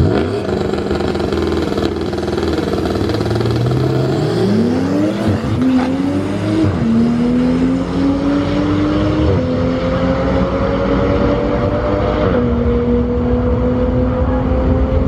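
Turbocharged Ford Mustang Bullitt's V8 accelerating at full throttle. Its pitch climbs and drops sharply at each of four upshifts.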